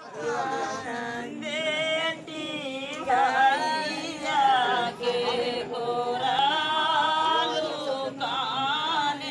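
Singing in a chant-like style, the melody sliding and wavering in pitch without a break.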